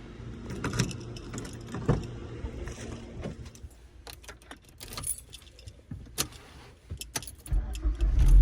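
Car keys jangling with a run of small clicks and knocks, then about seven and a half seconds in the Mazda's engine starts from cold and runs loudly and steadily.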